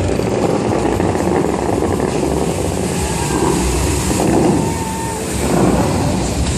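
Water jets of a large fountain show spraying and falling back, a loud steady rushing and splashing with a slight swell about four seconds in.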